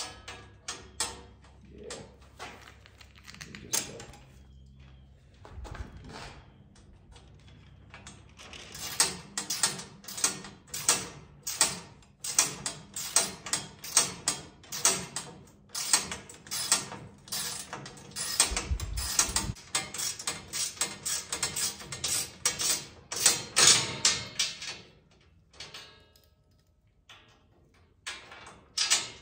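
Hand ratchet wrench with a 13 mm socket clicking in quick runs as nuts are run down tight, with a few scattered clicks and clanks of handling first and a dull bump partway through.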